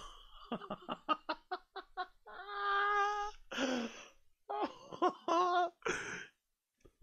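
A man laughing: a quick run of short ha-ha bursts, then a long high-pitched held laugh, then more bursts.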